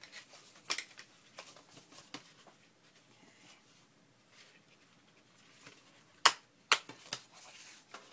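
Light handling of paper with a few faint taps, then two sharp clicks about half a second apart near the end, from a small clip being fitted onto a stack of papers.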